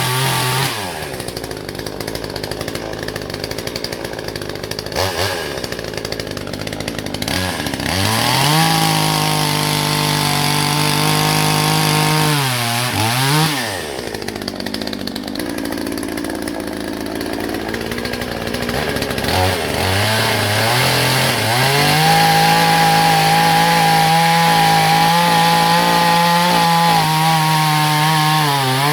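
Hyundai HYC6200X 62cc two-stroke petrol chainsaw cutting wood, revving to full throttle and dropping back to idle several times between cuts, held at full revs longest near the end.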